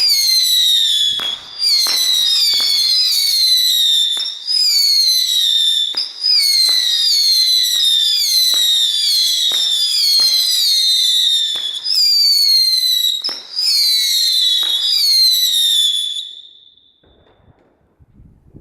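Weco Blizzard Star 15-shot firework battery firing: a launch crack with each shot, followed by a whistle that falls in pitch. The whistles come about once a second and overlap, then stop about sixteen seconds in.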